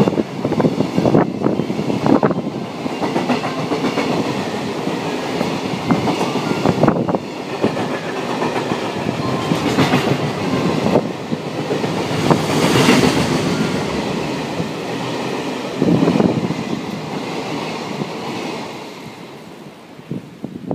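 Freight train passing at speed, its wheels clacking over rail joints in a steady run of clickety-clack over the running rumble. The sound fades away over the last few seconds as the end of the train goes by.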